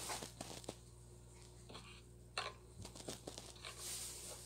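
A mostly quiet small room holding a few faint clicks and rustles, with a short hiss about two and a half seconds in.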